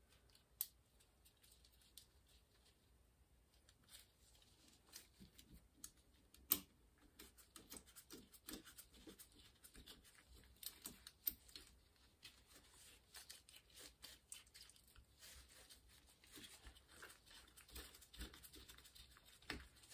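Faint, scattered clicks and light taps of small metal parts as a chrome twin-lever friction gear shifter is put back together by hand, with a few sharper clicks among them.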